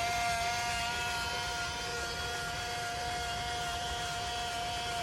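Electric motors of a Jabo II bait boat running with a steady high whine.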